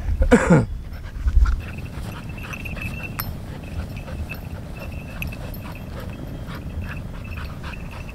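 Golden retriever panting, a quick run of short breaths. In the first second and a half there are a few low thumps and a brief falling sweep.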